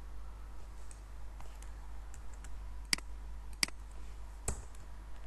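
Clicks from a computer mouse and keyboard. There are a few faint clicks, then two sharper clicks less than a second apart past the middle, and a duller knock near the end. A low steady hum runs underneath.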